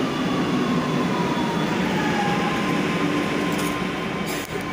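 Metro train slowing at the platform: steady rolling noise with an electric whine that falls slowly in pitch. A few sharp clicks come near the end.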